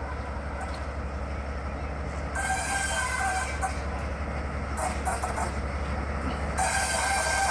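Railway locomotive running with a steady low rumble; from about two and a half seconds in a high hiss with a thin steady squeal joins it, dipping for a moment near the end and then returning louder.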